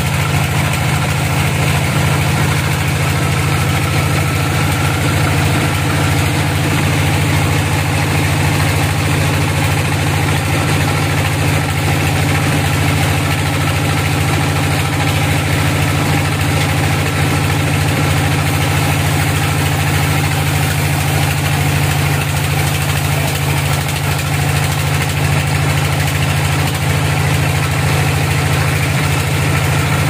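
Band sawmill running, its blade cutting lengthwise through a log as a wide slab is sawn off, over a steady low drone from the machine's drive.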